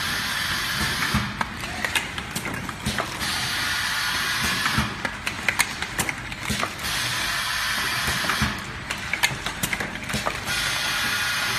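Automatic carton packing machine running, with rapid irregular clicking and clattering from its moving parts. A steady hiss comes on for a second or two about every three and a half seconds.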